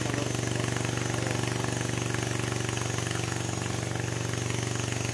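New West 707 two-stroke chainsaw idling steadily, its engine note holding even with no revving.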